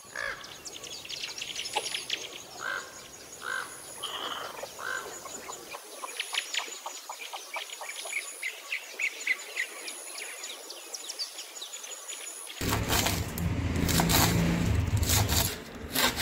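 Small birds chirping over a thin, steady high whine. About twelve seconds in, a knife starts chopping Cassia tora leaves on a wooden cutting board: a run of sharp strikes over a low hum, louder than the birds.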